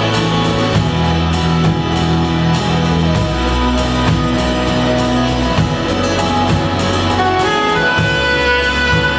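Live band playing an instrumental passage with no vocals: saxophone, acoustic guitar and drum kit keeping a steady beat over a low bass line.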